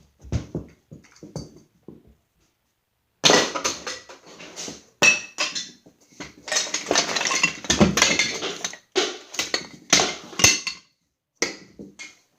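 Hard plastic toy pieces clattering and scattering as a toy set is smashed apart. It is mostly quiet at first, then dense runs of rattling clicks start about three seconds in and carry on in several bursts until near the end.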